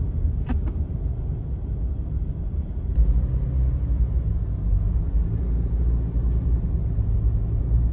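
Car driving on a snow-covered road, heard from inside the cabin: a steady low rumble of engine and tyres that gets a little louder about three seconds in. A short sharp click about half a second in.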